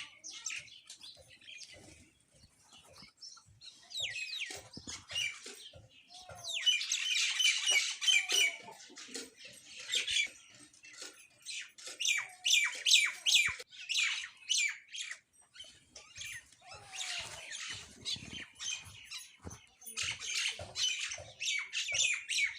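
Small birds chirping and squawking in quick chattering runs, with pauses between the runs. Light clicks and knocks are heard among the calls.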